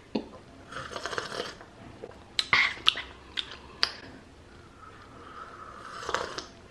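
A person's mouth sounds: a few sharp clicks and breaths, then a sip of hot coffee from a ceramic mug near the end.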